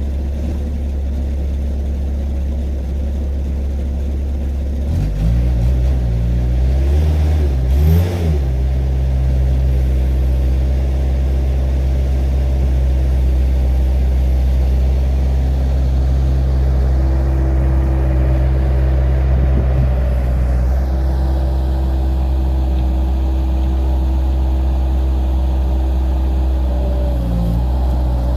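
Diesel skid steer engine idling, then throttled up about five seconds in and held at a steady higher speed as the machine drives, easing off briefly near the end.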